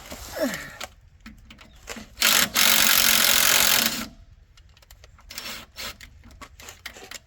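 Ryobi cordless impact driver hammering in a short burst and then a longer burst of about a second and a half. Scattered light metallic clicks and tool handling come before and after.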